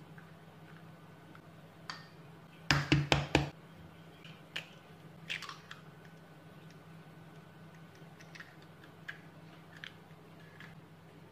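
Eggs being separated with a plastic egg separator over a ceramic bowl: a quick run of about five sharp taps a few seconds in, then scattered soft wet clicks and squishes as the white drains off the yolk, over a steady low hum.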